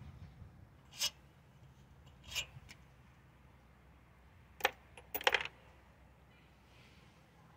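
Light metallic clinks from the Honda HR215 mower's partly removed carburetor as it is handled on its mounting studs. There are single clinks about one and two and a half seconds in, then several more in quick succession a little before the middle and just after it.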